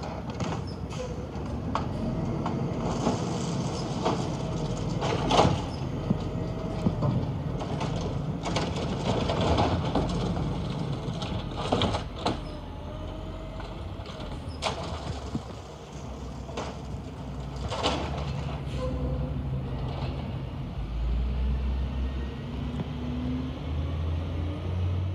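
Garbage truck working at the curb, heard from down the street: its diesel engine runs steadily, with a dozen or so sharp clanks and bangs spread through, from the lift gear and bins. Near the end the engine speeds up to a deeper, louder drone.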